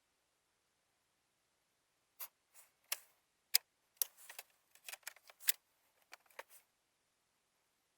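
Faint, irregular sharp clicks and taps, about a dozen of them, starting about two seconds in and stopping near seven seconds.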